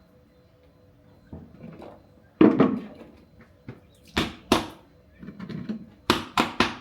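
A series of sharp knocks, with the loudest thump about two and a half seconds in, two more close together a little later and a quick run of three near the end.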